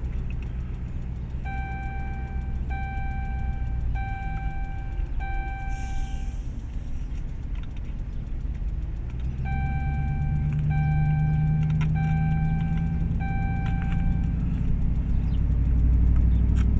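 Emergency vehicle driving, heard inside the cab: steady engine and road rumble, with the engine note climbing about halfway through as it speeds up. A repeating electronic beep, each about a second long, sounds four times, pauses, then four more times.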